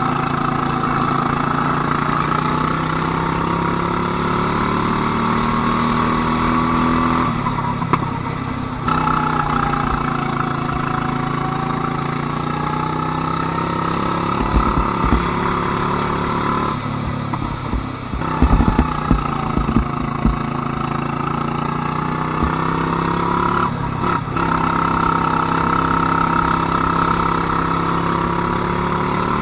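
Go-kart engine running hard, its pitch climbing as it accelerates and dropping three times as the throttle is lifted for corners. A few sharp knocks come about two-thirds of the way through.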